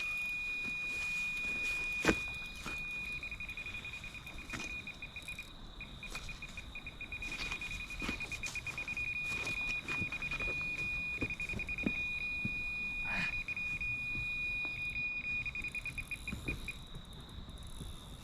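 Carp-Sounder ROC XRS bite alarm sounding a high steady tone, broken at times into rapid beeps, as a hooked carp runs and pulls line off the reel; it stops near the end. A fainter higher tone runs alongside, with a few knocks, the sharpest about two seconds in.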